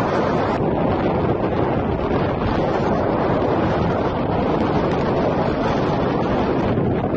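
Wind buffeting the microphone: a loud, steady rush that runs on without a break.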